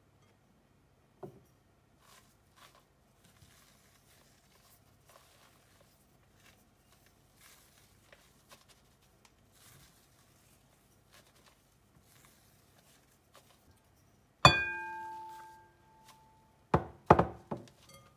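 Spatula folding beaten egg whites into mascarpone cream in a glass mixing bowl, with faint soft scraping and light taps. Near the end the spatula knocks hard against the glass bowl, which rings out clearly and fades, and then two or three more quick knocks follow.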